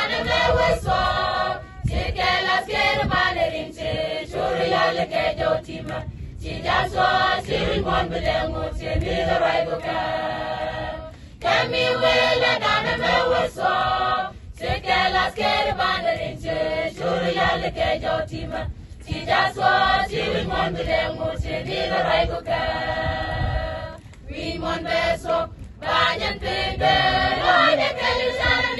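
Choir of men's and women's voices singing together in harmony, in phrases broken by short pauses.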